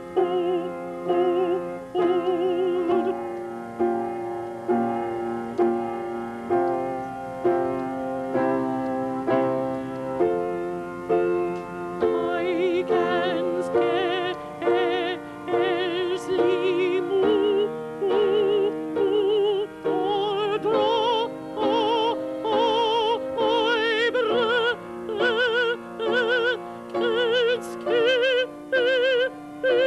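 Male opera singer singing a series of held notes with wide vibrato, climbing to higher notes in the second half, over a steady instrumental accompaniment.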